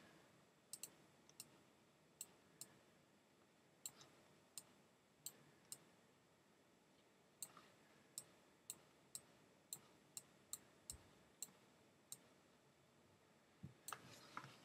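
Faint, sharp computer mouse clicks, pressed again and again at an irregular pace while strokes are drawn on screen, with a pause of about a second and a half midway.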